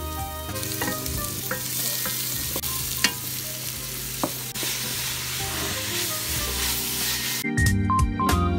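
Julienned carrots, potato and onion sizzling in oil in a pot while being stirred with a wooden spatula, which knocks against the pot a couple of times. Background music with a beat takes over near the end.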